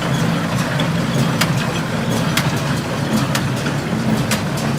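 Tractor engine running steadily while driving an International Harvester 430 square baler, with a sharp knock repeating about once a second.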